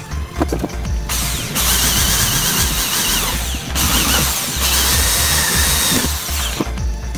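Electric hand drill boring into the aluminium edge extrusion of a flight case, in two runs of about two and a half and two seconds, with a wavering high whine as the bit cuts.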